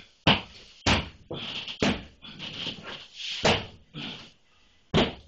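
A sheetrock panel being slapped to massage it into place: five sharp slaps, unevenly spaced about a second apart.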